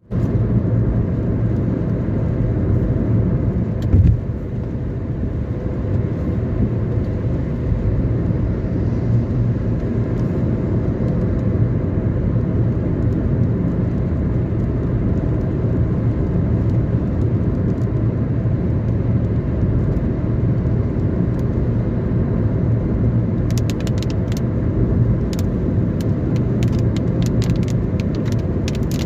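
Car driving at speed, a steady low rumble of tyre and road noise. There is one brief thump about four seconds in, and a scatter of small sharp ticks near the end.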